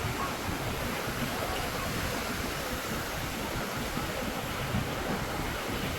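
Steady rush of flowing water, like a stream or waterfall.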